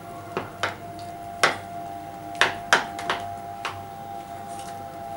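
A hand beating thick urad dal batter in a bowl, with irregular sharp knocks and slaps against the bowl, about seven in all, over a faint steady hum.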